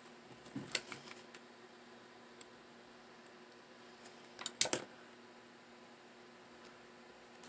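Small clicks and taps from handling a hot glue gun and a satin-ribbon headband, in two short clusters, about half a second in and about four and a half seconds in, the second the louder, over a faint steady hum.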